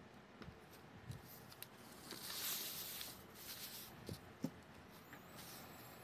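Sheet of calligraphy paper being slid across the table, a soft rustling swish about two seconds in, with a few light taps and knocks around it.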